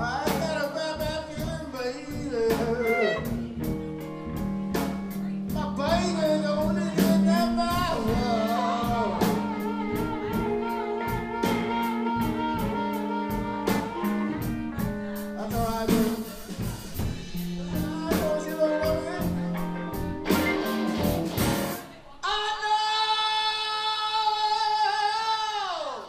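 A live electric blues band playing a slow blues: electric guitars, bass and drum kit with a singer. About 22 seconds in the drums stop and the band ends on a long held note.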